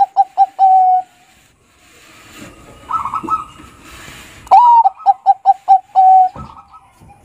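Bangkok-type zebra dove (perkutut) cooing: two phrases, each a rising opening note, then a quick run of short staccato coos, ending in a longer held note. A few softer coos fall between the two phrases.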